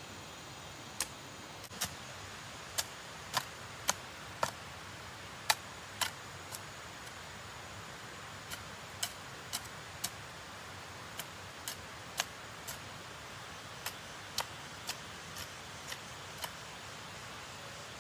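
Sharp, irregular clicks or snaps, roughly one a second and sometimes in quick pairs, over a steady hiss.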